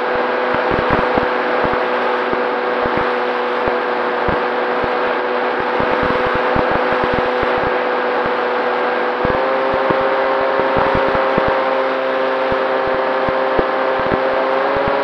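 FPV quadcopter's electric motors and propellers whining steadily, as heard through the drone's onboard camera, with frequent low buffeting crackles on the microphone. The whine steps up a little in pitch about nine seconds in.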